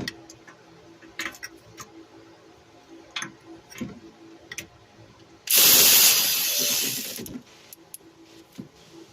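Scattered clicks and taps of a hand ratchet and tools on the transmission filter's mounting bolts as they are snugged. About five and a half seconds in, a loud rushing hiss lasts nearly two seconds and fades out.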